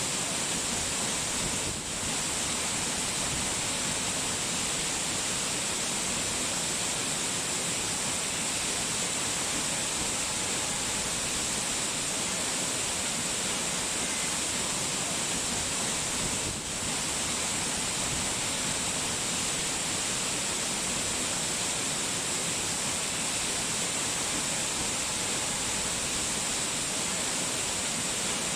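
Steady rushing water, an even wash of sound that dips briefly twice.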